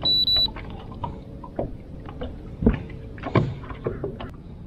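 A short high electronic beep from the boat's electronics, then a series of knocks and thumps from gear being handled in the boat, the two loudest about two and a half and three and a half seconds in.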